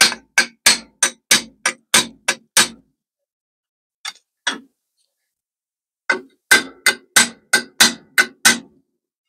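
A ball-peen hammer striking a steel sheet-metal repair piece clamped in a bench vice, bending its corner over. Sharp metallic taps come about three a second in one run, then two light taps after a pause, then a second run of taps.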